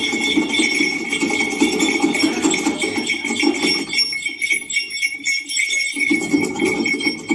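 Small metal jingles shaken rapidly and without a break, played as a Foley sound effect.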